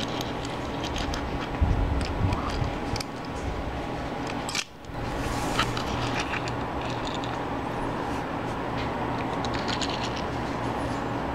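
Steady background hum and hiss, with a few faint taps and clicks from fingers turning a small die-cast toy car on a wooden floor. The sound cuts out briefly a little under halfway through.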